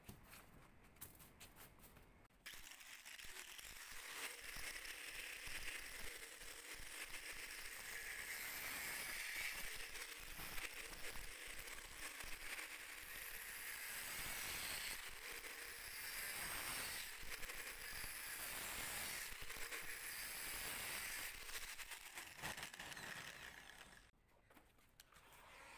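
Angle grinder switched on about two seconds in, running steadily as its disc grinds away at a small plastic tube, then stopping shortly before the end.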